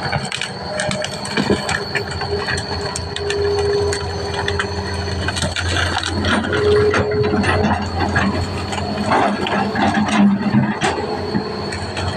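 Excavator at work: its diesel engine runs steadily under squeals from the machine's moving parts and irregular metallic clanks and cracks. The squeals come as held tones, one about three to five seconds in and again about six and a half seconds in.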